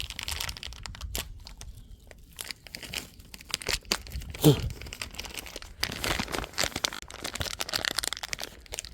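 Parts being handled at a workbench: rustling and light clicking throughout, with one sharp knock about four and a half seconds in.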